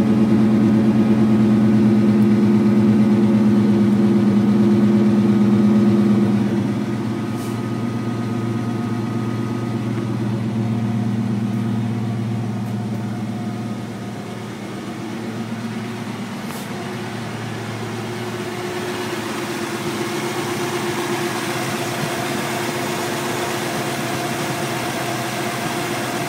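Ford Mustang engine idling steadily while still warming up, its low exhaust note loudest for the first six seconds or so and then quieter.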